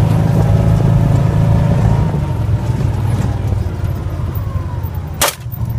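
Engine of a small utility vehicle running steadily as it drives, with a single pistol shot near the end.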